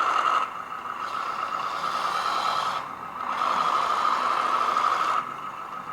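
Simulated diesel engine sound from the sound module of an RC skid-steer loader, played through its small speaker and rising and falling as the tracks are driven. It drops away briefly twice, as the sticks return to neutral.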